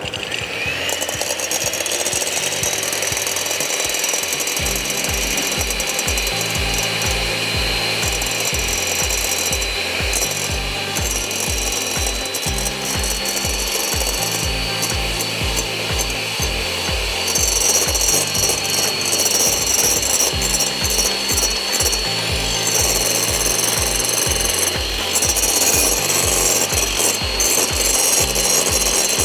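Electric hand mixer beating egg whites in a glass bowl: the motor spins up at the start and runs steadily with a thin whine that steps up in pitch about halfway through, then eases slightly. The whites are being whipped towards stiff peaks.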